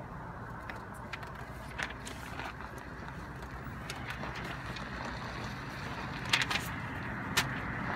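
Steady low outdoor background noise with a few short, crisp rustles and clicks of paper sheets being leafed through, the sharpest near the end.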